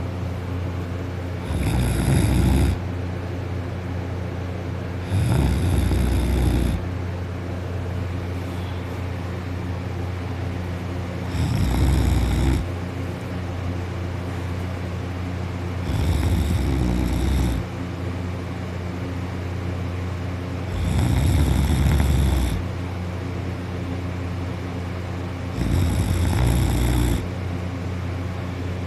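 A sleeping person snoring loudly: six snores about every four to five seconds, each lasting a second or so, over a steady low background hum.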